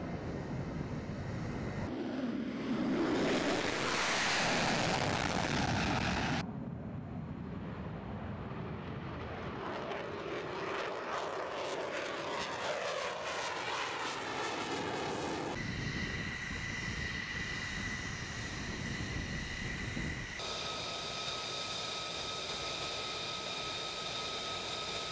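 Fighter jet engines in a run of short clips, the sound changing abruptly several times. A loud jet roar builds about two seconds in and stops sharply near six seconds. A wavering jet roar follows. Later comes a steady engine whine with high tones from jets on the ground.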